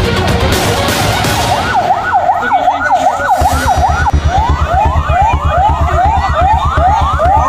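Electronic emergency siren of the ambulance type, wailing in fast up-and-down sweeps that switch about halfway through to quicker rising whoops. A low, evenly pulsing beat comes in at the same moment.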